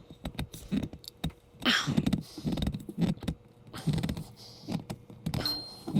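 Hands gripping and twisting a spin-on oil filter to tighten it by hand, with rubbing, clicks and knocks at irregular intervals.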